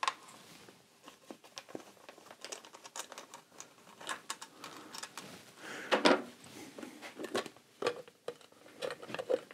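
Hands working on motorcycle parts: irregular light clicks, taps and rustling, with one louder knock about six seconds in.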